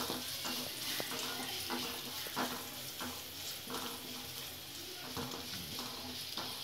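Chopped garlic sizzling gently in hot oil in a metal kadai, with a wooden spatula scraping and stirring it round the pan in repeated short strokes, the garlic frying on low flame until golden brown.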